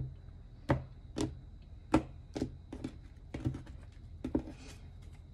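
Tarot deck handled over a table: cards split off the deck and set down, making a string of sharp separate taps and clicks, about two a second.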